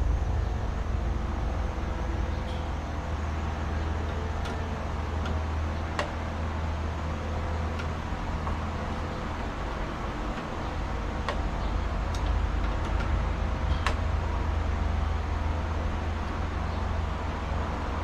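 An engine running steadily with a low hum, and a few light clicks and taps scattered through it.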